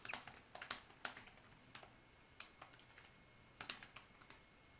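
Typing on a computer keyboard: a run of quick, irregular keystrokes, faint.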